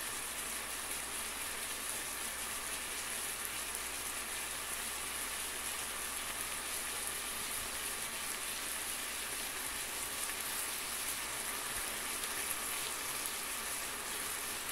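Boneless chicken breasts frying in a pan in their juices and oil, sizzling steadily with an even, rain-like crackle.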